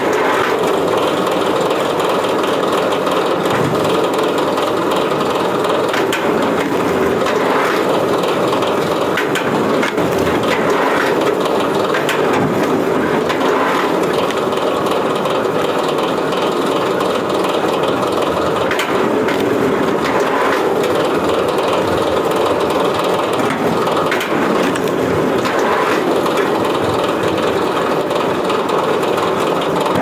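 Powered log splitter running steadily while logs are driven through its steel wedge, with repeated sharp cracks of wood splitting apart every few seconds.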